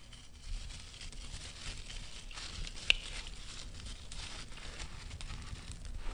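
Dry, gritty sand-and-cement clump crushed in bare hands: a steady crunchy crackle of crumbling grains, with one sharp click about three seconds in.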